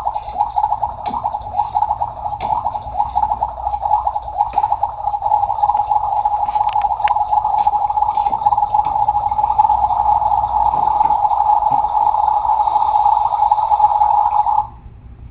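Electronic cooking sound effect from a toy play kitchen's burner, played through a small built-in speaker: a steady, fluttering, narrow-pitched sound that cuts off suddenly near the end.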